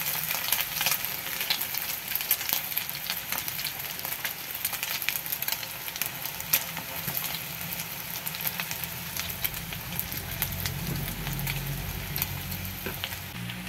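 Chicken-and-egg patties frying in hot oil in a skillet: a steady sizzle with many small crackling pops.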